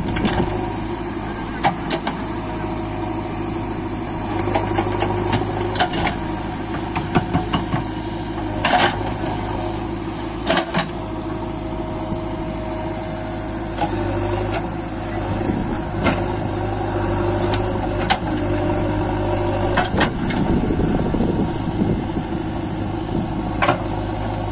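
JCB 3DX backhoe loader's diesel engine running steadily while the rear backhoe digs soil, with scattered clanks from the bucket and boom linkage every few seconds.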